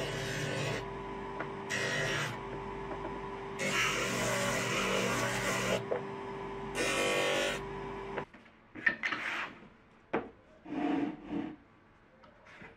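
Electric disc sander running with a steady hum while wooden pieces are pressed against the sanding disc in four rasping bursts. The sander cuts off suddenly about eight seconds in, followed by a few knocks and wood-handling sounds.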